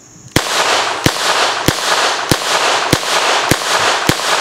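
A Ruger LCRx .22 LR revolver fired rapidly double-action: seven sharp shots about 0.6 s apart, starting about half a second in, each echoing into the next.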